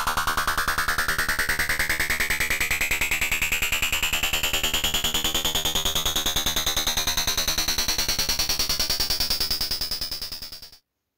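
Electronic synthesizer sweep: a rapidly pulsing tone rising steadily in pitch, with a second, higher tone falling to meet it, then cutting off suddenly shortly before the end.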